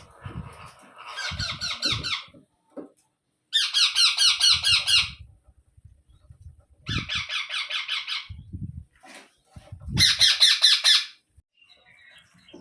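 Indian ringneck parakeet giving four bursts of rapid, harsh repeated squawks, each lasting about a second, with soft low thumps between them.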